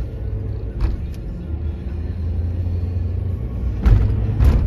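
Steady low engine and road rumble heard from inside a moving vehicle, with a few short thumps and knocks from the ride, the loudest two near the end.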